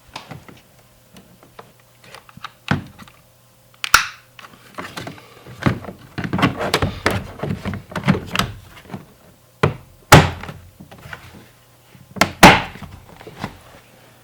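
Plastic door trim panel being handled and pressed into place on a van's front door: a series of knocks, clicks and scuffing, with two louder thunks near the end as the panel is pushed home.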